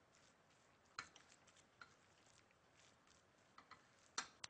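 Near silence with a few faint ticks and squishes of a chickpea-and-egg paste being mixed in a bowl, with two sharper clicks near the end.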